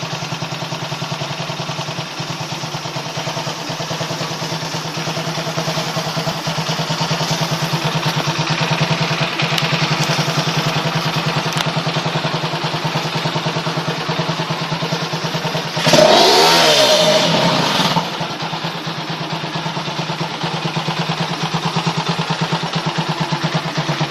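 Combustion engine idling with a rapid, even ticking from its valve train, the valve noise that is the point of the recording. About two-thirds of the way in it is briefly revved for about two seconds, then settles back to idle.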